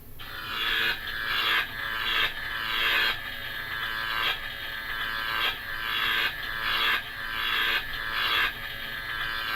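Built-in sound effect of a novelty Fright Light flashlight, played through its small speaker: a rough scraping sound that repeats about every three-quarters of a second, each stroke swelling and then cutting off.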